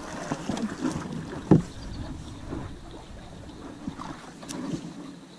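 Canoe paddling: the paddle swishing and dipping in the water and knocking lightly against the hull, with one louder thump about a second and a half in.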